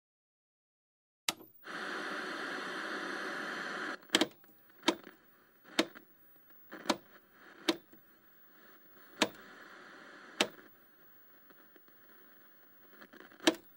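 A click, then about two seconds of loud static-like hiss that stops abruptly, followed by about eight sharp knocks at irregular spacing over faint hiss.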